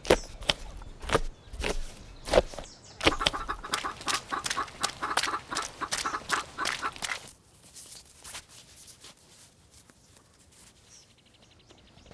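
Chickens clucking over a run of sharp ticks or steps, busiest for the first seven seconds, then dropping to a few scattered clicks.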